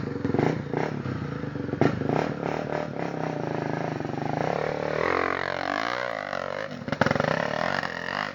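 Off-road motorcycle engine running hard on a hill climb, with a few clattering knocks in the first couple of seconds. The engine pitch drops and then picks back up about six seconds in.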